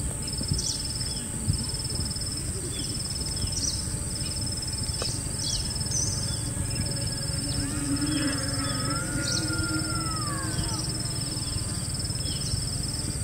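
Outdoor nature ambience of birds calling: short chirps and a repeating high trill in roughly one-second phrases over a steady high hiss, with one longer call that rises and then falls about eight seconds in.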